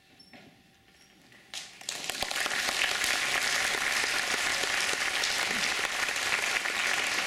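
Audience applauding: after a quiet moment the clapping starts about a second and a half in and quickly builds to steady, full applause.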